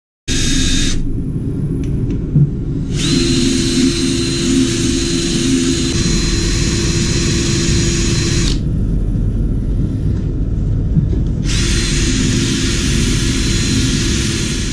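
A wood lathe spins a grey alder vase with a steady low rumble while a drill-driven sanding disc is pressed against it. The drill's steady whine and the sanding hiss come in three stretches: briefly at the start, then for about five seconds, then again over the last three seconds.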